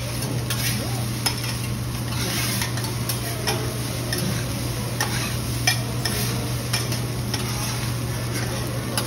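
Fried rice sizzling on a teppanyaki steel griddle while two metal spatulas scrape, chop and clack against the plate in an irregular rhythm. A steady low hum runs underneath.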